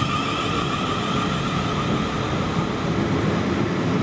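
Class 450 Desiro electric multiple unit departing and passing close by: a steady electric whine from the traction equipment, fading out over the first couple of seconds, over the running rumble of the wheels on the rails.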